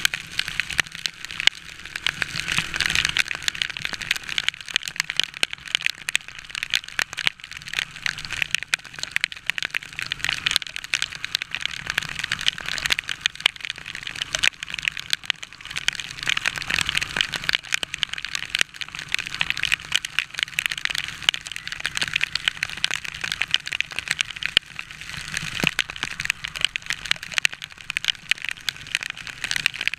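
Heavy rain striking right at the microphone of a motorcycle-mounted camera: a dense, steady crackle of countless drop impacts.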